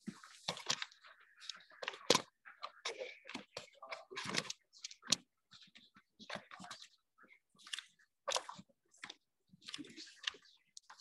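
Irregular rustling and clicking, coming in quick, uneven spurts with short gaps between.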